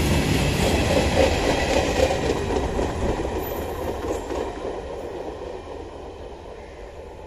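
Freight train of flat wagons loaded with steel coils running past, wheels clattering; the sound fades steadily as the rear brake van goes by and the train moves away.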